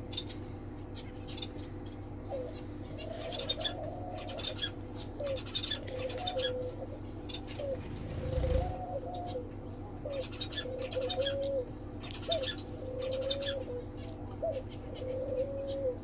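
White doves cooing over and over in low notes, with small finches chirping high and quick around them. A brief rustling whoosh comes about eight and a half seconds in.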